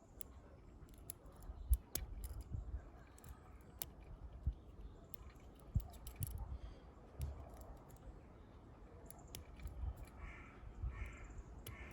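Faint, scattered small clicks of a lock pick and turning tool working the pins of a Solvex lock, which feels smooth rather than crunchy, over a low rumble of handling and wind on the microphone.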